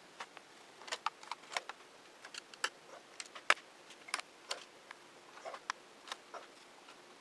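Small screwdriver working the bottom-case screws of a Dell Inspiron 1420 laptop: irregular light clicks and ticks of metal on screws and plastic casing, with a few sharper taps among them.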